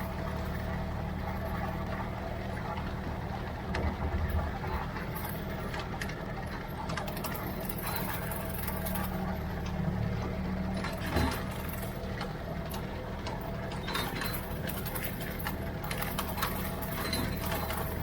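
Ford 3600 tractor engine running steadily while driving a Brush King rotary brush mower, with a few short knocks, the clearest about eleven seconds in.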